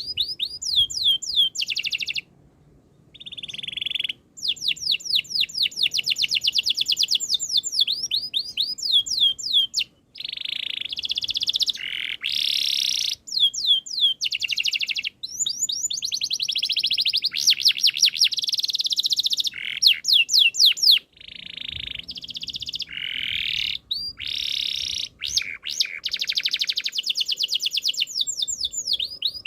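Domestic canary singing a long, loud song of rapid repeated falling whistled notes and rolling trills, phrase after phrase with brief pauses between.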